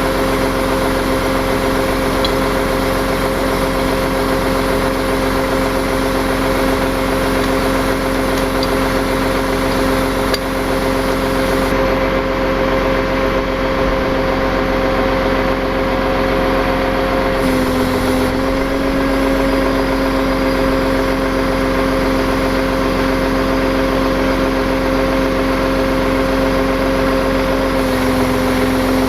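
Tow truck engine running steadily with an even hum; its pitch drops slightly about two-thirds of the way through and again near the end.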